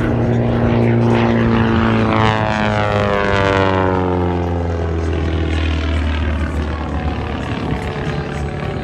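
Propeller airplane flying past, its engine and propeller drone falling in pitch as it goes by.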